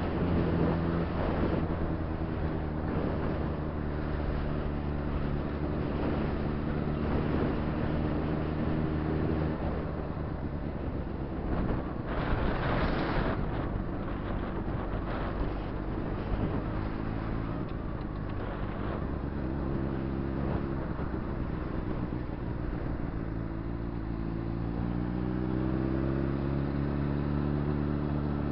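Honda CBR600RR inline-four engine running under the rider on the move, with wind rush on the microphone. The engine note holds steady at first, eases off through the middle with a brief rush of noise, then rises in pitch near the end as the bike accelerates.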